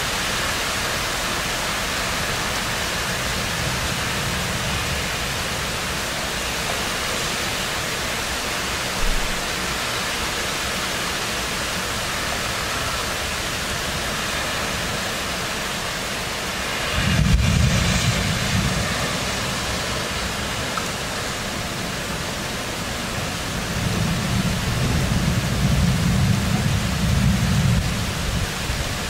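Heavy thunderstorm downpour: rain hissing steadily. Just past halfway a thunderclap starts suddenly and rumbles for about two seconds, and near the end a longer rolling rumble of thunder builds and fades.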